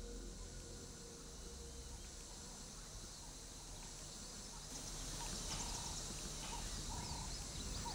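Faint open-grassland ambience: a steady hiss, with wild birds starting to call a little over halfway through, repeating short mid-pitched notes about twice a second along with quick high falling chirps.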